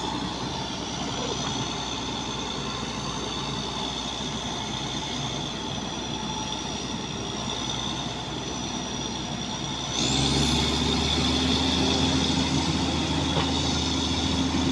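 Bulldozer's diesel engine running steadily with a thin high whine. About ten seconds in it is throttled up: it gets louder and the whine rises sharply in pitch.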